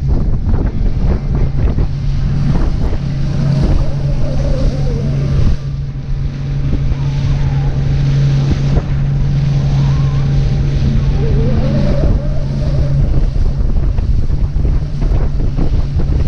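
Motorboat engine running with a steady low drone, under heavy wind buffeting the microphone. The engine's steady hum drops away a few seconds before the end.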